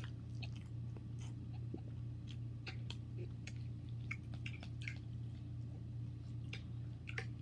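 Noodles being chewed close to the microphone: wet mouth sounds and irregular short, sharp clicks, over a steady low hum.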